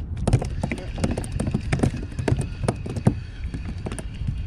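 Spinning reel being wound in to bring a hooked mackerel to the kayak: a run of irregular clicks and ticks over a steady low rumble.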